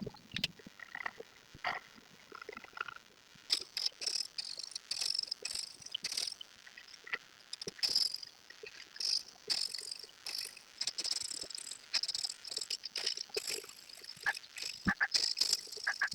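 Coloring strokes on paper: a coloring tool rubs and scratches across the page in short, irregular strokes. They are sparser and squeakier for the first few seconds, then quicker and scratchier.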